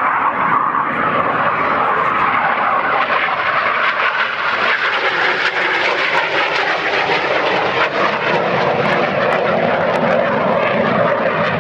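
Jet noise from an IAR 99 Soim jet trainer's single Rolls-Royce Viper turbojet as it flies overhead, steady throughout, slowly dropping in pitch as the aircraft draws away.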